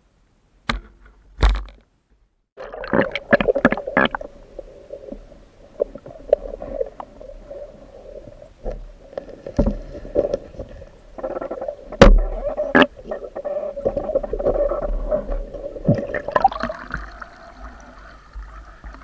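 Muffled underwater sound from a camera held under creek water: churning, gurgling water with a few sharp knocks and scrapes, the loudest knock about twelve seconds in.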